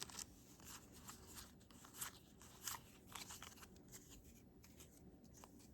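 Faint crinkling and light clicks of a foil Pokémon booster pack and its trading cards being handled and shuffled through.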